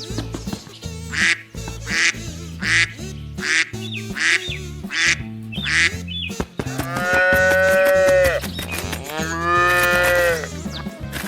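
Animal sound effects: a duck quacking in a quick run of short calls, then a cow mooing twice in long, drawn-out calls, over a background music bed.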